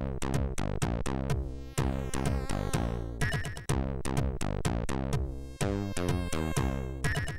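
Commodore 64 SID chip music from a MOS 6581 sound chip: a chiptune with many sharp, quickly decaying drum-like hits over a steady bass line.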